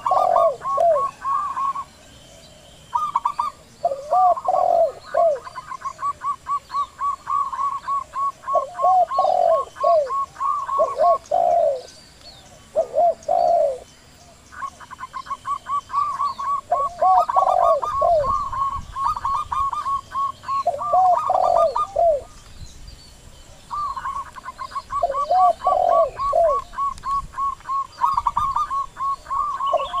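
Zebra doves and spotted doves cooing. Long, fast runs of short, higher coos break off every few seconds, over lower, arching coos that come in groups of two or three.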